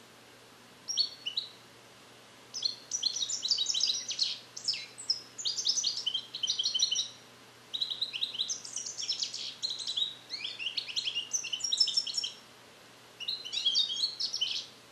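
European goldfinch, a captive-bred young male trained on Neapolitan song passages (passata napoletana), singing high, rapid twittering phrases in four bursts with short pauses between, the middle two lasting several seconds each. He is repeating the trained passages but his song is not yet complete.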